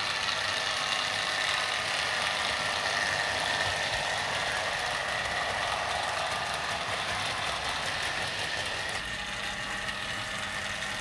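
OO gauge model BR Standard Class 3 tank engine running with a train of vans: the small electric motor gives a steady high whine over the rattle of the wheels on the track.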